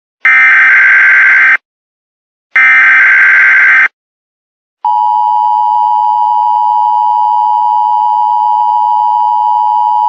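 Emergency Alert System SAME header data bursts, two harsh buzzing bursts of about a second and a quarter each, a second apart, encoding an Amber Alert. A little under five seconds in, the steady two-tone EAS attention signal starts and holds.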